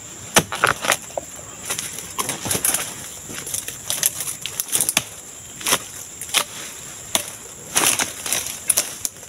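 Harvesting blade chopping repeatedly into the frond bases and fruit-bunch stalk of a young oil palm: a string of sharp, irregular strikes, bunched closer together near the end.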